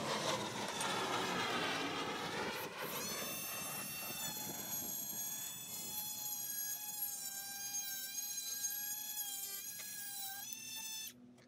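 Compact cordless cutoff tool (Milwaukee M12 Fuel) with a 3-inch diamond tile and stone blade cutting natural stone tile. It makes a high motor whine whose pitch sags and recovers during the first couple of seconds, then holds steady. The sound stops abruptly near the end.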